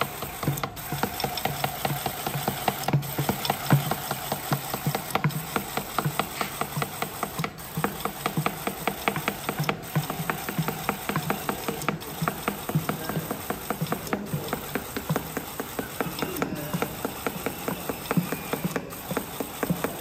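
Friction feeder running, its belts pulling special-shaped paper cards off the stack one after another: a rapid, even run of clicks over the machine's steady running sound.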